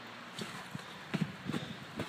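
Footsteps walking through snow at a steady pace, a soft crunching step every half second or so.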